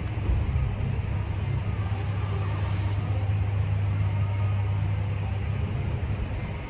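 A steady low hum over an even background noise, with no distinct knocks or voices.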